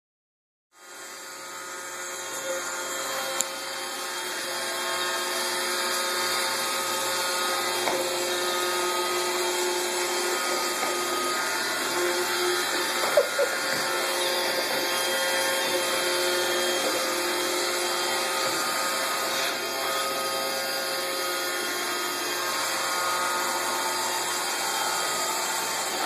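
Roomba robot vacuum running, a steady motor and brush whine that starts about a second in. A couple of light knocks sound over it.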